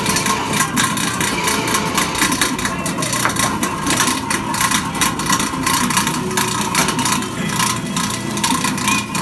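Electric grater running steadily with a constant whine and dense, irregular scraping as peeled green bananas are pressed down into it and grated.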